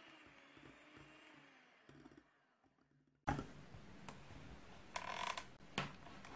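Electric hand mixer running, its wire beaters working through stiff meringue in a glass bowl, starting suddenly about three seconds in after a faint stretch, with a couple of short louder knocks and scrapes near the end.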